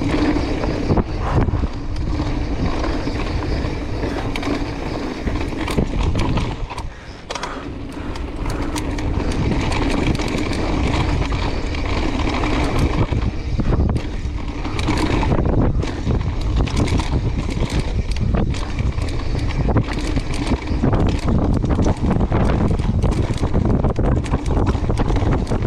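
Mountain bike rolling fast down a dry dirt and rock trail: knobby tyres crunching over dirt and stones, with frequent rattles and knocks from the bike over rough ground. It goes briefly quieter about seven seconds in.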